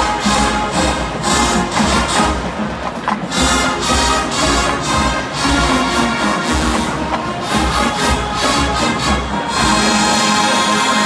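College marching band playing a Motown arrangement, brass and drums over a steady beat.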